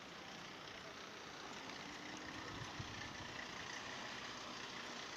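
Steady street traffic: vehicle engines and tyre noise on a busy town avenue.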